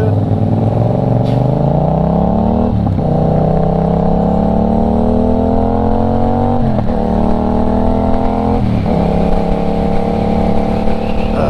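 Motorcycle engine accelerating up through the gears. The note climbs, drops at a shift about three seconds in, climbs again, and drops at two more shifts around seven and nine seconds, then holds at a steady cruise.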